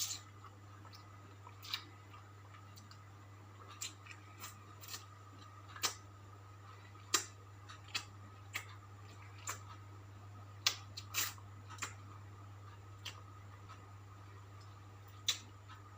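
Close-up eating sounds of smashed fried chicken with sambal: short crunches and mouth clicks at uneven intervals, about one every second or so, over a steady low hum.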